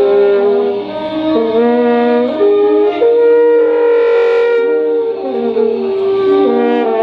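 An ensemble of wind and brass instruments playing held chords, the notes moving to new pitches every second or so, with one longer held chord about halfway through.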